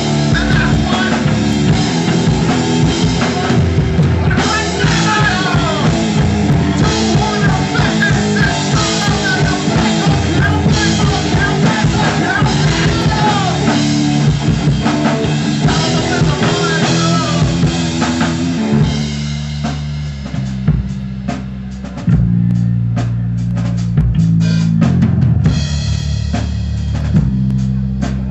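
Live band playing an instrumental passage: drum kit and bass guitar under a lead guitar with bending, sliding notes. About 19 seconds in the lead drops out, leaving bass and drums playing a sparser groove.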